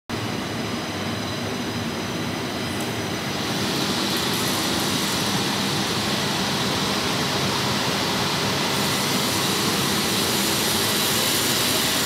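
Copper-wire stranding machine running, its rotating bobbin cage twisting copper wires into a power-cable conductor. Steady machine noise that grows brighter and a little louder about three and a half seconds in.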